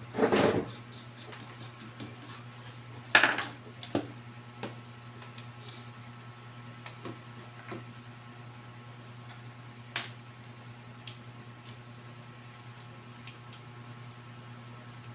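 Tools and small objects being handled and set down on a repair bench: two short clatters, the first at the start and a louder one about three seconds in, then a few light clicks, over a steady low hum.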